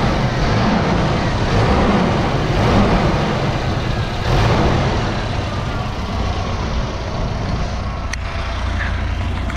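Volvo 240's B230F four-cylinder engine running with newly fitted alternator and power-steering belts under heavy electrical load. It swells louder a few times in the first half, as if lightly revved, then runs steadily. There is no belt squeal: the belts no longer slip.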